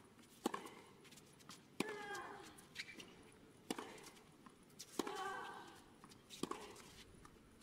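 Tennis rally on a hard court: sharp racket strikes on the ball every second and a half or so, with a player's drawn-out grunt falling in pitch after two of the shots.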